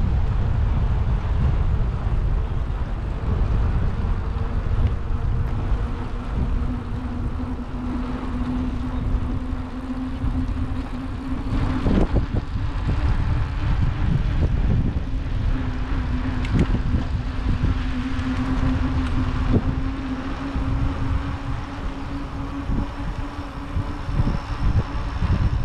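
Wind buffeting the microphone on the move, a heavy low rumble, with a steady low hum coming in after a few seconds and a few sharp clicks.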